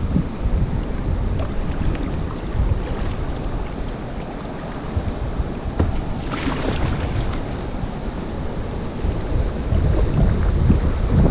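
Whitewater rapids rushing in a steady hiss, with wind buffeting the microphone, and a louder rush of water about six seconds in.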